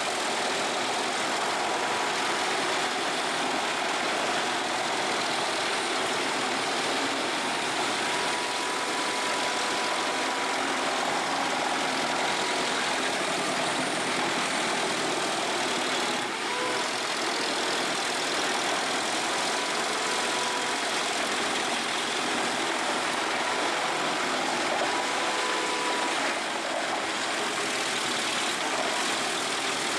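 Industrial wood shredder running steadily: a constant machinery noise with a faint steady whine.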